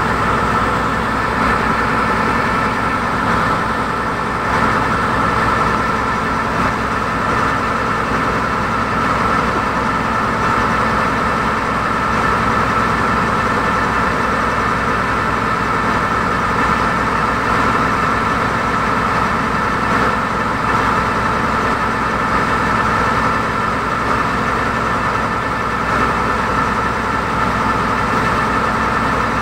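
A passenger ferry launch's engine running steadily under way: a constant low drone with a steady high whine over it.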